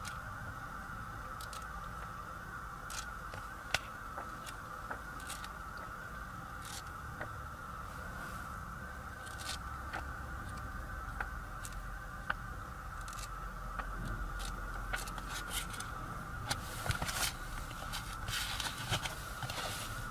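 Pages of a paper car owner's manual being turned and handled: scattered rustles and soft clicks that grow busier in the last few seconds as the booklets are shuffled into a leather folder. A steady hum runs underneath.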